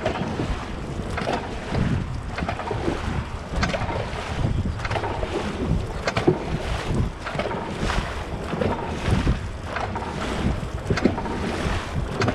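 Dragon boat crew paddling in rhythmic strokes: paddles splash and water rushes past the hull about one to one and a half times a second, with wind buffeting the microphone.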